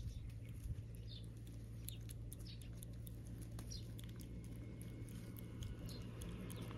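Kitten licking a lickable cat treat from a squeeze tube: many small, faint wet clicks and smacks. A few short high chirps sound in the background.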